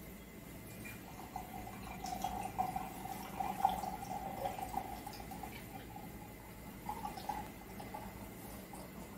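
A thin stream of water pouring into a vessel for about six seconds, with a few light clinks along the way.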